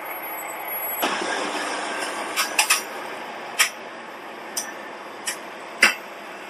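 Heavy machinery running, with a jump in noise about a second in, then a series of sharp metallic knocks and clinks, about seven spread irregularly over the next five seconds.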